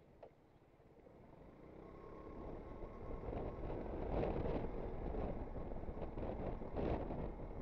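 Aprilia Sportcity Cube 250 scooter under way, its engine and the wind rush on the microphone growing steadily louder over the first few seconds as it picks up speed, then holding steady.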